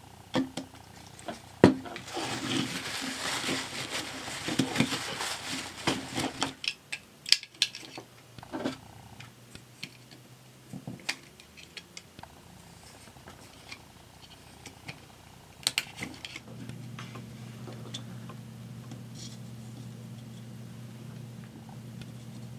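A small metal pick scraping corrosion off the battery contacts of a toy's plastic battery compartment, a dense scratchy rasp for a few seconds followed by scattered clicks and taps of metal on metal and plastic. About two-thirds of the way in, a steady low hum sets in and continues.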